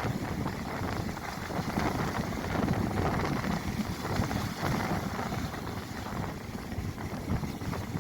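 Storm wind at sea buffeting the microphone over the rush of rough water, a dense noise that gusts up and down unevenly.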